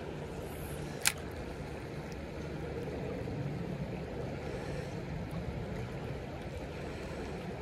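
Creek water flowing steadily, a low, even rush, with one sharp click about a second in.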